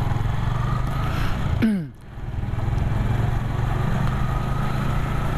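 Motorcycle engine running as the bike rides along. About two seconds in its pitch drops sharply and the sound briefly falls away, then it picks back up and runs steadily again.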